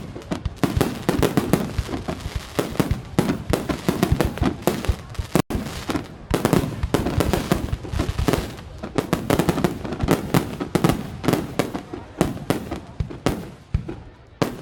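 Fireworks crackling and popping in a dense, rapid stream of small bangs, many a second. The sound drops out for an instant about five and a half seconds in.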